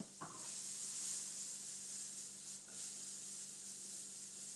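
Diced apple sizzling in butter in a skillet as the pan is moved around: a steady frying hiss, with a couple of faint clicks of the pan.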